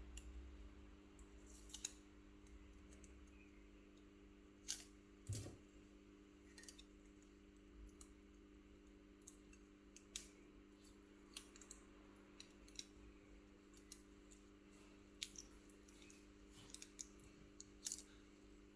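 Sparse small clicks and taps of hand tools working on an iPhone 12 mini during a battery replacement, over a faint steady hum.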